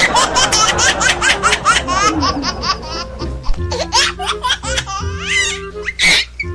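High-pitched laughter in a rapid run of short giggling bursts over background music, with one loud sharp burst about six seconds in.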